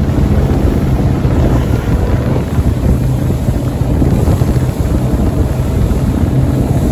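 Rigid inflatable boat running at speed: a steady low engine drone under heavy wind buffeting on the microphone.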